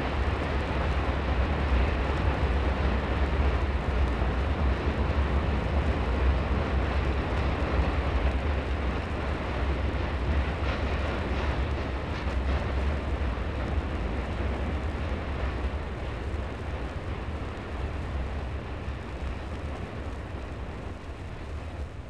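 Freight train hauled by a Norfolk & Western Y6 compound steam locomotive rumbling past, a dense, heavy rumble that slowly dies away over the last several seconds.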